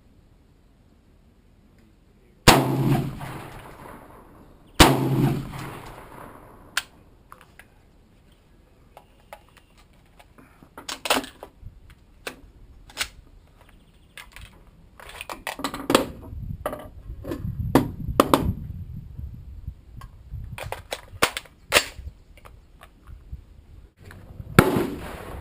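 AR-15 rifle firing two loud shots a couple of seconds apart, each with a long echoing tail. A run of sharp metallic clacks and clicks follows as the rifle is worked to clear a stoppage. A third, quieter bang comes near the end.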